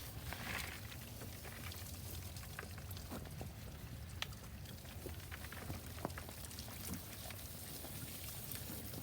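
Scattered small clicks, cracks and rustles of freshly dug turmeric rhizomes being handled and broken apart into pieces, over a steady low rumble.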